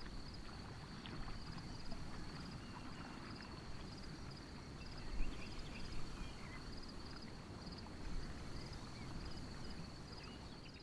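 Faint outdoor ambience: a steady high trill that swells about once a second, over a low rumble with a few faint scattered chirps.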